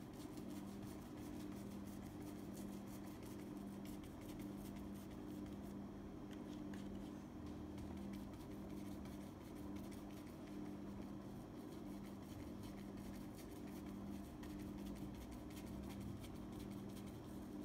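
Faint scratchy dabbing of a stiff hog-bristle brush working acrylic paint onto a canvas sheet, over a low steady hum.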